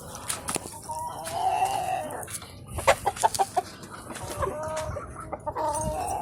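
Chickens clucking and calling, with drawn-out calls and a quick run of short clucks in between.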